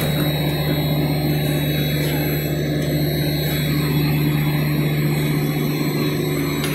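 Steady drone of running industrial machinery: a constant low hum with fainter steady tones above it, unchanging throughout.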